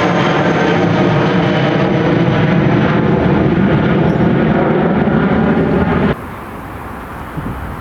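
Jet airliner engines passing close and loud, a dense rush with several steady whining tones over it. About six seconds in the sound stops abruptly and gives way to much quieter outdoor wind noise.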